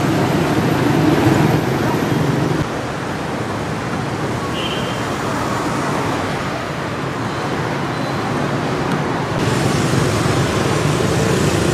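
Busy city street traffic of motor scooters and cars: a continuous wash of small engines and tyre noise. It drops abruptly a few seconds in and comes back up near the end.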